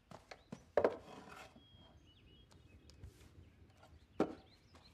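Light wooden knocks and scraping as the wooden-framed front of a small terrarium is opened and a hand reaches into the sand, with sharp knocks about a second in and near the end, and a few faint short high chirps in between.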